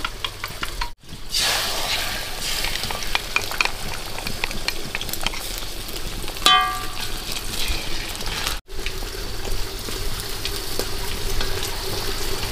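Food sizzling and crackling as it fries in a pan while being stirred. The sound breaks off for an instant twice. A short ringing note about halfway through is the loudest moment.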